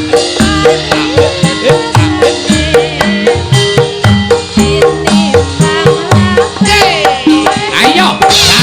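Javanese gamelan music: hand-drum strokes in a quick steady rhythm over ringing metallophone notes. Near the end the music grows fuller, with sliding high notes joining in.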